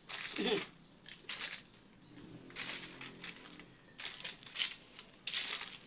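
Crinkling and crunching of plastic sacking and broken debris being handled, in short irregular bursts about once a second.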